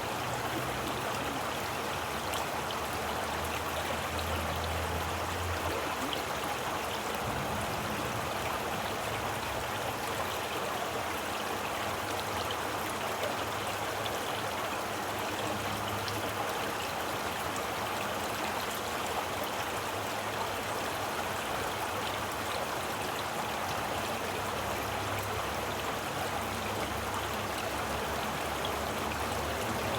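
Running water of a stream flowing steadily, a continuous even rush with no breaks.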